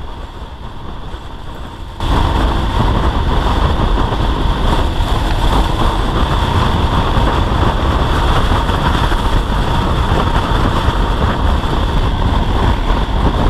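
Motorcycle ridden at speed: steady engine and road noise under heavy wind rushing over the helmet camera's microphone. The noise jumps up suddenly about two seconds in and then holds steady.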